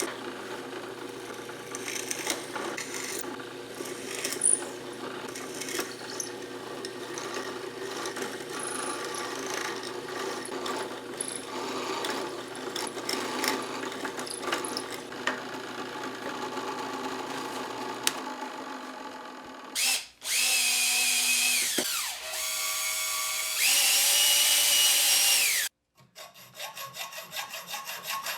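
Electric drill running and cutting into wood, a steady hum with rough cutting noise, while small slots are drilled out for a hose clamp. Near the end, two louder, higher-pitched stretches of motor whine of about two seconds each: the first winds down, the second stops abruptly.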